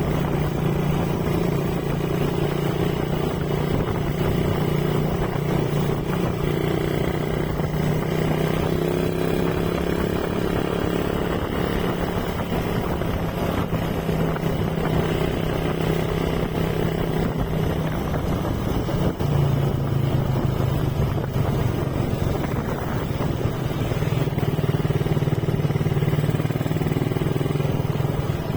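Motorcycle engine running steadily while riding, with road noise; the engine note dips slightly about two-thirds of the way through and then holds steady again.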